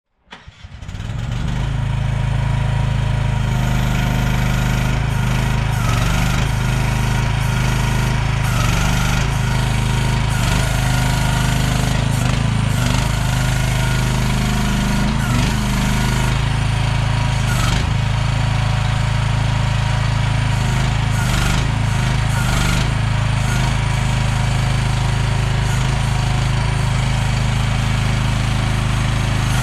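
CFG Industrial MX15RX mini excavator's engine running at a steady speed, with occasional short knocks and clanks over it.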